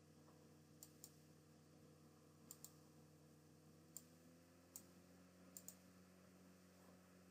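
Computer mouse button clicks, several in quick pairs like double-clicks, over a faint steady hum.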